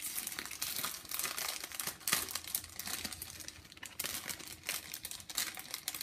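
Packaging being unwrapped by hand: crinkling and rustling with a few small tearing sounds, in dense irregular bursts.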